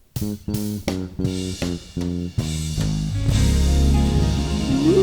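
Live soul band music: guitar and bass play a run of short, punchy chord stabs, about three a second. After about two and a half seconds they give way to a sustained groove, with a held melody line coming in near the end.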